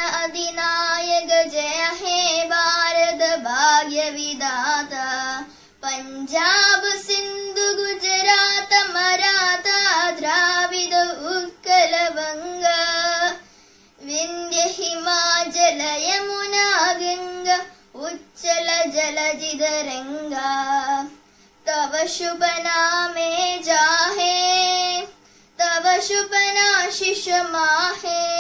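A young girl singing solo and unaccompanied, in phrases of a few seconds with short breaks between them.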